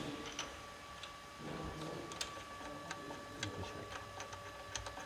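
Scattered light clicks and taps of metal tools and parts being handled during truck engine work, over a faint steady hum.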